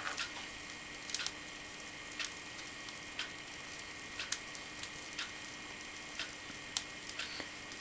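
Home-made hot-wire foam cutter at work, drawing its heated wire through a styrofoam block: sharp ticks about once a second, with a few lighter clicks in between, over a faint steady hum.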